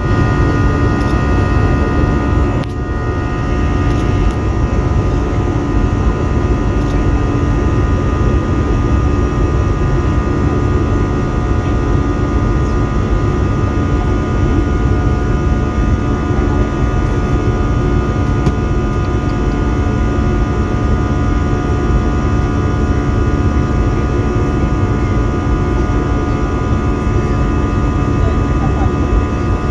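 Airbus A320 airliner's jet engines running steadily in flight, heard from inside the cabin: a constant rush of noise with several steady humming tones over it, dipping slightly about three seconds in.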